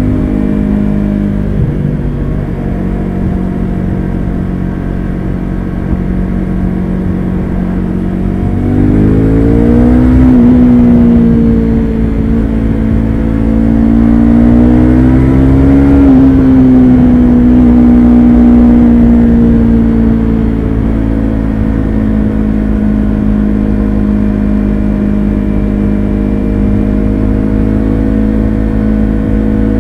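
Yamaha YZF-R3's parallel-twin engine through an unbaffled Akrapovic carbon slip-on exhaust, ridden on the road in a lower gear at higher revs than usual. It holds a steady note, then the revs climb from about nine seconds in, with a brief dip near ten seconds. They peak around sixteen seconds and ease back to a steady cruise.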